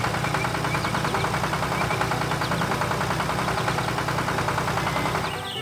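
Vehicle engine running steadily with a rapid, even pulse, with faint short high chirps over it. It drops away near the end.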